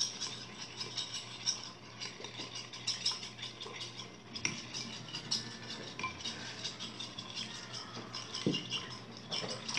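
Spoon stirring and scraping a glittery slime mixture in a plastic bowl, with many small irregular clicks, taps and rattles.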